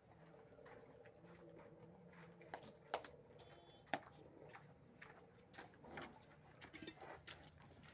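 Faint scattered knocks and clicks of cattle stirring in a shed, the sharpest about three and four seconds in, over a low steady hum.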